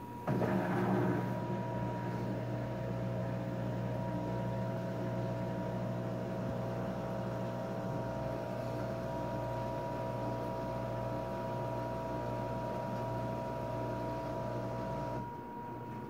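LG Direct Drive front-loading washing machine giving a steady whine: it starts abruptly just after the start, holds a constant pitch for about fifteen seconds and cuts off suddenly near the end. This whine is the unwanted noise the owner is recording.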